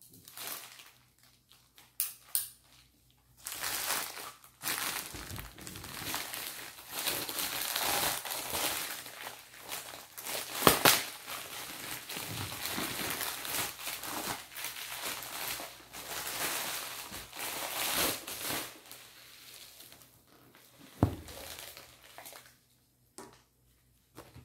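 Plastic poly mailer bag crinkling and rustling as it is torn open and a boxed item is pulled out of it, with one sharp crack about halfway through. A single thump follows later.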